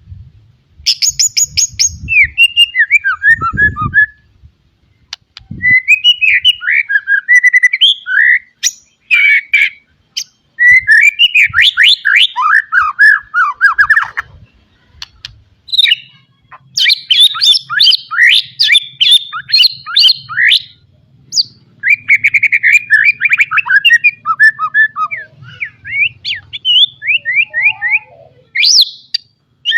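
White-rumped shama singing: bursts of rapid, varied whistles and trills separated by short pauses. The song is packed with phrases mimicked from other birds.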